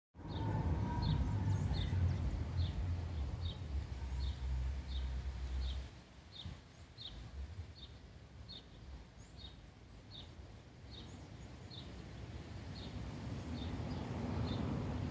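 Outdoor ambience: a short, high chirp repeated steadily about twice a second. Under it is a low rumble that is loudest for the first six seconds and then drops away.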